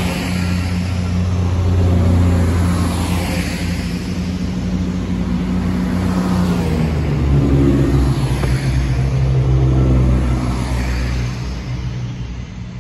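Underfloor diesel engines of a CrossCountry Class 170 Turbostar diesel multiple unit working hard as the train pulls away and accelerates. The engine note steps down about seven seconds in, then fades as the train draws away.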